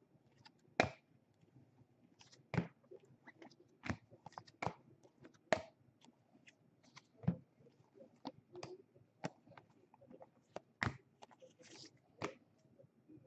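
Baseball trading cards and their packs being handled: irregular sharp clicks and snaps as cards are flipped through and set down, some louder than others.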